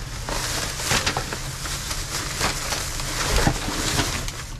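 Rustling and crinkling of a trash bag and small discarded items being handled and shifted, a dense irregular crackle with scattered clicks, over a steady low rumble.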